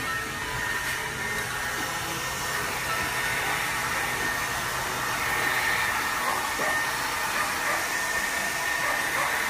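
Small handheld hair dryer running steadily, blowing onto a plastic fender flare: a constant rush of air with a thin, steady high whine.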